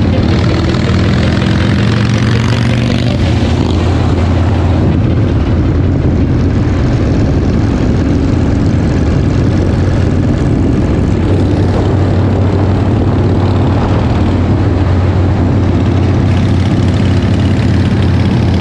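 Harley-Davidson V-twin motorcycle engine running steadily at speed, a deep, even engine drone.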